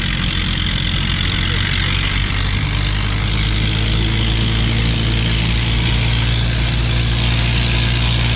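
Suzuki KingQuad 750 single-cylinder quad engine held at full throttle, revving steadily high as its wheels spin free in a mud rut and throw mud.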